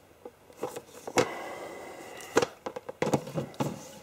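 VHS tape cases being handled and moved on a shelf: a series of short clicks and clacks, the loudest about a second in and again near two and a half seconds, with a quick cluster just after three seconds.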